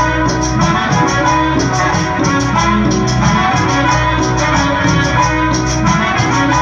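Classic cumbia music playing over a sound system, with a bass line, melody and a steady, even high percussion rhythm.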